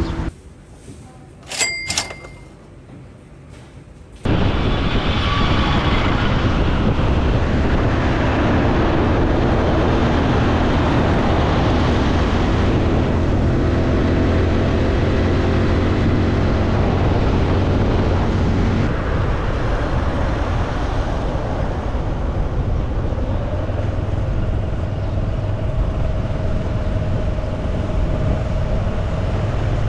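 Honda Super Cub C125's single-cylinder engine running steadily under way, mixed with a loud rush of wind noise. It cuts in suddenly about four seconds in, after a quieter stretch with a couple of short clicks.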